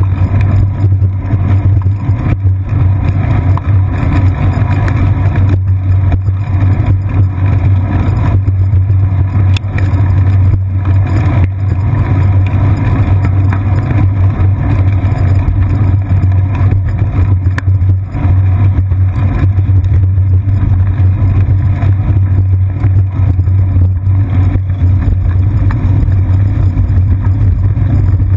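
Steady low rumble of wind and road vibration picked up by a GoPro mounted on a bicycle seat post as the bike rolls along a paved path.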